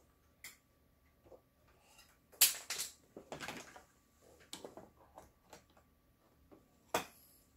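Scattered handling noises on a workbench: small clicks, a short clatter about two and a half seconds in followed by a rustle, and a sharp knock near the end.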